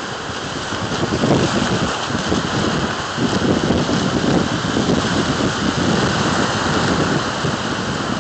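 Surf breaking and washing over a rocky shore, a steady hiss, with wind buffeting the microphone in uneven low gusts that grow stronger about three seconds in.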